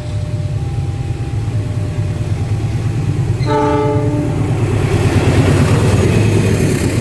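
Railway locomotive's S35 horn sounding one short chord blast about three and a half seconds in, over the steady low rumble of the train. The rumble then swells into the louder noise of the train passing near the end.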